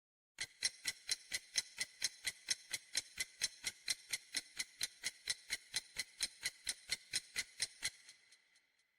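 Clock-like ticking of a quiz countdown timer, about three even ticks a second, counting down the answer time. It stops near the end with a short ringing fade.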